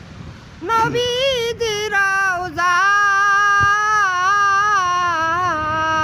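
A single high voice singing solo, coming in after a short pause with long held notes that waver with vibrato and slide between pitches.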